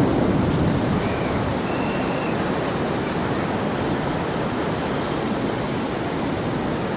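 Drain water pouring over a stepped concrete outfall and splashing into a stream below: a steady rush of falling water.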